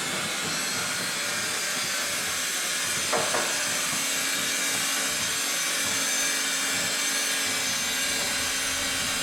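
Steady hissing construction machinery noise with faint level tones, and one brief louder sound about three seconds in.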